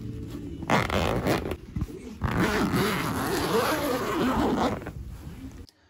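A zip on a fabric campervan cover being pulled open by hand: a short pull about a second in, then a longer steady run from about two seconds to nearly five seconds in.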